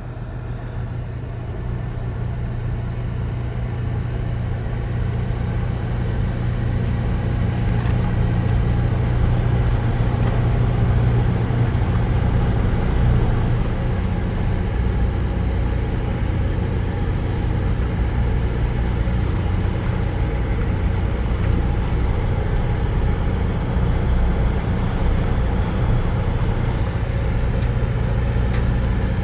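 Diesel engine running steadily: a deep, even drone with a constant low hum, growing louder over the first several seconds and then holding steady.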